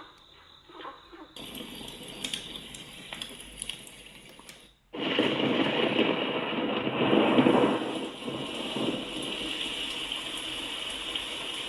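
Recorded running-water nature sound played through a sunrise alarm clock's small speaker. It starts about a second in, breaks off briefly near the middle, then resumes louder.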